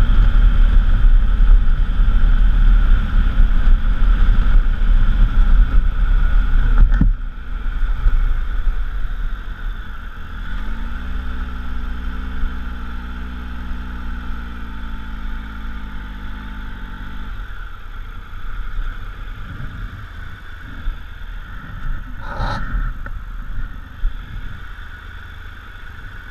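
Triumph Tiger Explorer XC's inline three-cylinder engine under way on a gravel track, with heavy wind rush over the helmet-mounted camera. The sound drops sharply about seven seconds in, and the engine carries on at low revs as the bike slows and pulls up. A short click comes near the end.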